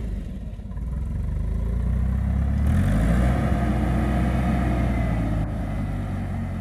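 Old forklift's engine running and revving, stepping up in pitch and loudness a little over two seconds in and holding there as the forklift raises the rear of a pickup truck.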